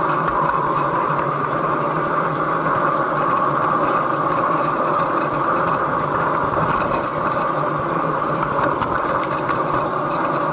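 Model train running along the layout, heard from a camera riding on it: a steady whirr of the small electric motor and the wheels rolling on the rails, with a few faint clicks.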